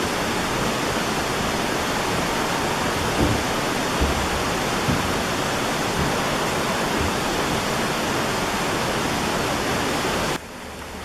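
A steady, even rushing hiss that drops off sharply about ten seconds in, with a few faint thumps in the middle.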